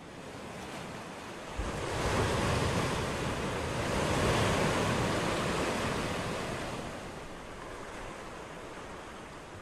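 Rushing surf-like noise of ocean waves, swelling a couple of seconds in and slowly easing off.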